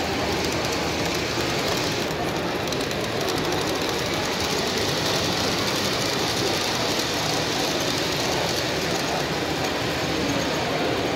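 Model train running along a layout's track: a steady rolling noise with fast, fine clicking of wheels on the rails.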